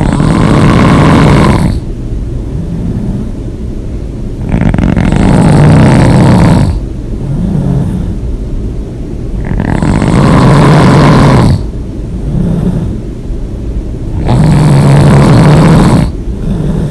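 A person snoring loudly: four long snores about every four and a half seconds, each followed by a softer, shorter sound before the next.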